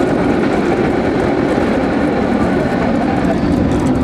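Tram running along the track at speed: a steady rumble of wheels on rails, heard inside the rear of the car.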